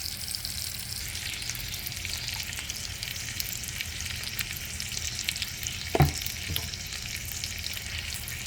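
Pot roast searing in a hot pan: a steady sizzle with crackles, and a single knock about six seconds in.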